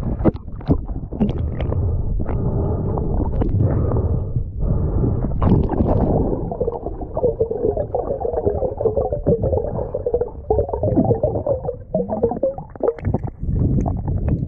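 Water sloshing and gurgling around a camera at the sea surface, with sharp splashes and knocks, then going muffled and rumbling as the camera goes fully underwater. A wavering low hum runs through the middle.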